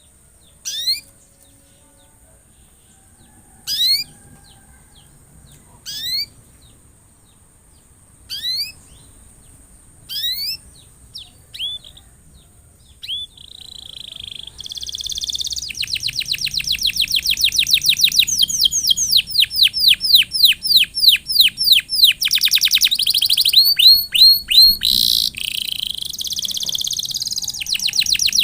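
Domestic canary singing: short chirp phrases every two seconds or so, then about halfway through it breaks into a loud, continuous song of fast repeated trills.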